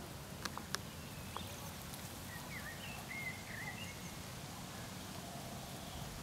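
Outdoor ambience: a steady low rumble with faint bird chirps about two to three seconds in and a few sharp clicks in the first second and a half.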